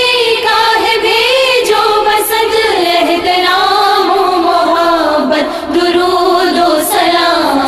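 Women's voices singing a naat together, a slow melodic line with wavering, ornamented pitch.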